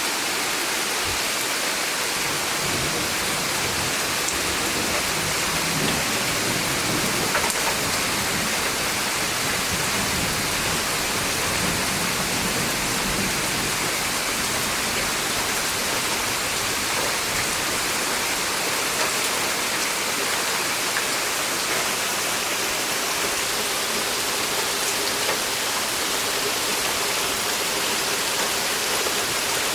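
Steady summer rain falling, an even hiss of rain on the surfaces around the porch, with a few louder drips standing out here and there.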